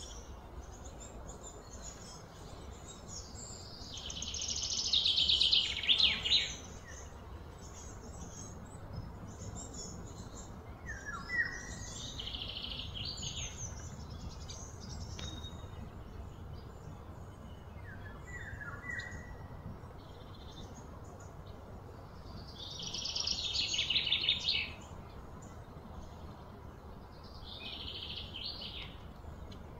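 Wild birds calling: a few short falling chirps and four loud, rapid buzzy trills of one to three seconds each, the loudest about four seconds in. A low steady rumble runs underneath.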